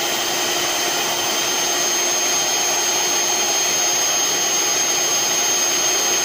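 Miyako electric hand mixer running steadily with a high whine, its beater spinning in liquid in a stainless-steel jug.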